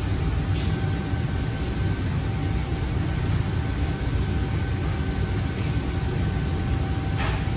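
Steady low roar of a commercial kitchen's extractor hood and wok range, with a faint steady hum over it. A brief faint noise comes about half a second in and another near the end.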